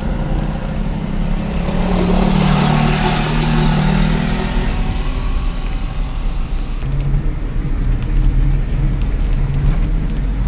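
Suzuki Jimny Caribian's 1.3-litre four-cylinder engine running steadily under load as the 4x4 crawls through a shallow muddy water obstacle. A spell of hiss comes about two to four seconds in, and the engine note drops lower around seven seconds in.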